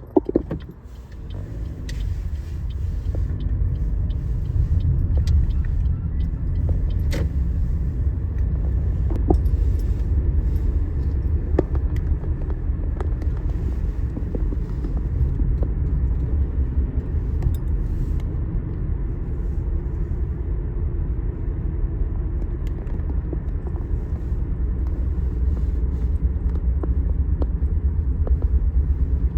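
Steady low rumble of road and engine noise inside a moving car, with a sharp knock right at the start as the noise builds over the first couple of seconds.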